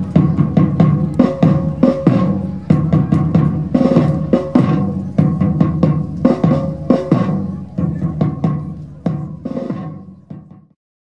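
Drum-led music: drums beating a steady rhythm over held, sustained tones, fading out near the end.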